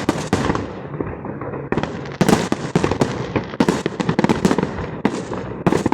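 Fireworks display going off: dense crackling bursts and pops, with the thickest clusters of bursts from about two seconds in.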